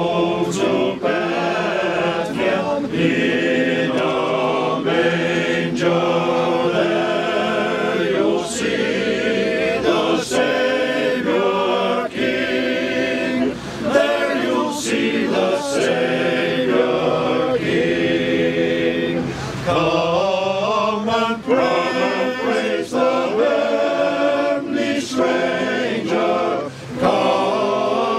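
A group of voices singing a Christmas carol together in harmony, unaccompanied, phrase by phrase with short breaks between lines.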